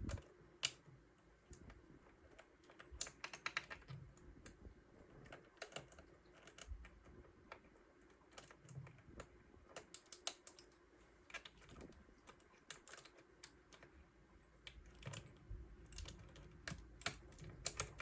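Faint, irregular small metallic clicks and scrapes of a pick and tension bar working the wafers inside a Flynn arcade lock, a wafer-slider type lock, as it is being picked.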